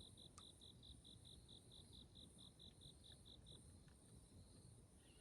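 Faint insect chirping: a cricket giving short, evenly spaced high chirps about four times a second, stopping about three and a half seconds in, over a steady higher insect hum and a low rumble.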